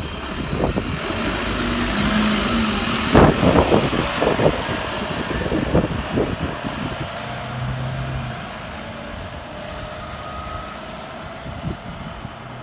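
Volvo B9TL double-decker bus pulling away from a stop and accelerating off down the road, its diesel engine loudest a few seconds in, then fading as the bus drives away.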